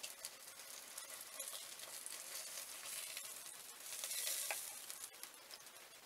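Food frying in hot oil in a pan on a wood stove: a steady sizzle flecked with small crackles, swelling louder about four seconds in.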